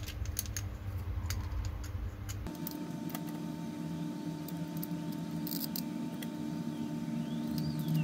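Light clicks and clacks of hard 3D-printed plastic parts being handled, as iris-valve blades are slipped onto the pins of a printed ring. The clicks are scattered and irregular.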